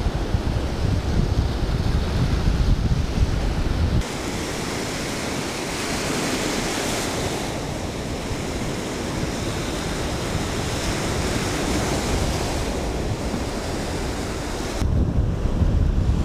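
Baltic Sea surf washing onto a sandy beach, with wind buffeting the microphone. The wind rumble drops out suddenly about four seconds in, leaving a steady hiss of foaming surf, and comes back near the end.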